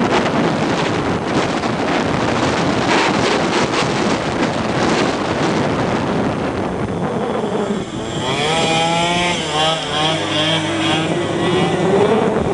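Scooter engines running hard with a rush of wind on the microphone. About two-thirds of the way in, one engine's note stands out clearly, its pitch wavering up and down several times and then climbing near the end.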